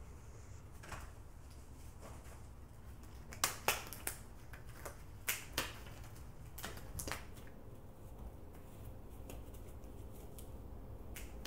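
Disposable gloves being handled and pulled on: a run of short sharp snaps and rustles, clustered a few seconds in, with fainter ones later, over a low steady hum.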